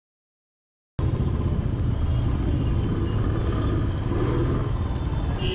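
Road traffic rumble, with wind and vehicle noise heavy in the low end, starting abruptly about a second in after dead silence.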